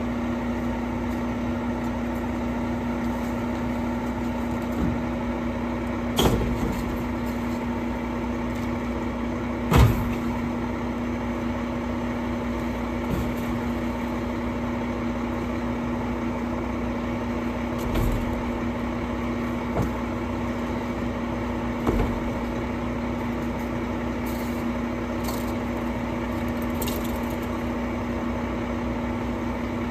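Mack LEU garbage truck's engine idling steadily, with a few sharp thumps and knocks as bulk items are thrown into the front-mounted Curotto Can; the loudest knock comes about ten seconds in.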